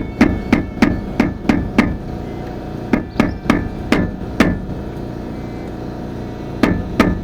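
Hammer blows on metal at a pickup's front wheel hub, each with a short metallic ring. About fourteen strikes come in three runs: a quick series of about seven in the first two seconds, five more a second later, and two near the end.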